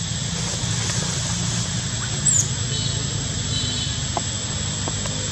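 Outdoor ambience: a steady low rumble and a steady thin high whine, with one short, high, falling squeak a little over two seconds in.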